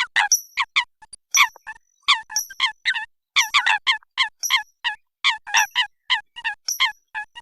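Eurasian coot calling: a rapid, uneven run of short, sharp notes, several a second.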